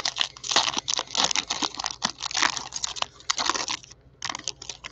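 Foil wrapper of a Panini Prizm basketball card pack being torn open and crinkled by hand: dense crackling for about four seconds, a short pause, then a few more crinkles near the end.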